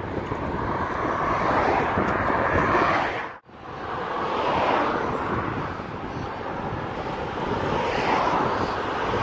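Wind rushing over a phone microphone while cycling along a road, mixed with road traffic that swells and eases every few seconds. The sound cuts out sharply for a moment about three and a half seconds in.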